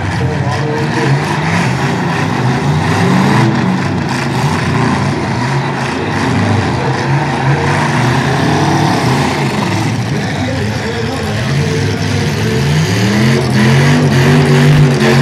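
Several demolition derby pickup trucks' engines running and revving, their pitch rising and falling as the trucks drive and push in the arena, louder near the end.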